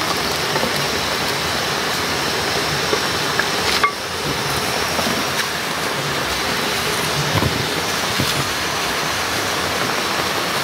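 A pot of goat meat boiling hard on the heat, giving a steady rushing hiss. A single sharp knock sounds about four seconds in.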